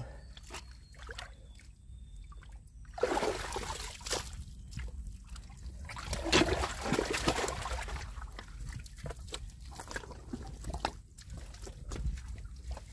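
Wet mud squelching and sloshing as hands dig and reach down into a deep mantis-shrimp burrow, in irregular bursts with small wet clicks. The loudest bursts come about three seconds in and again around six to seven seconds.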